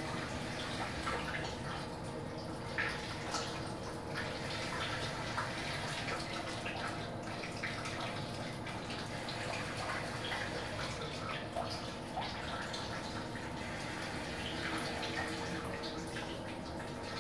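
Rational SCC61 combi oven running with its display at 100°: a steady fan hum with a constant tone, over watery trickling and small drips inside the cooking cabinet.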